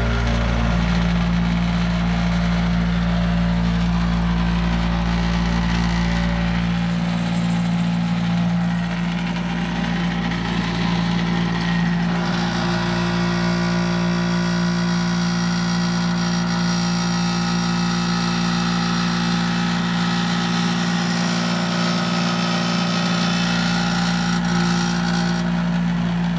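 Electric motor of a homemade vibrating concentrator and screener running with a steady hum. A garden-hose spray nozzle hisses as water flushes ore slurry through the bucket screen.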